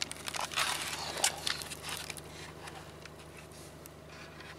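Rustling and clicking of a handheld camera being moved about inside a pickup's cab, mostly in the first couple of seconds, over the low steady hum of the truck's engine idling.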